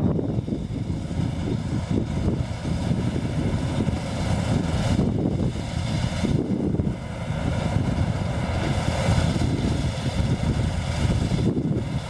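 A New Holland combine running steadily as it harvests standing wheat, with wind buffeting the microphone in gusts.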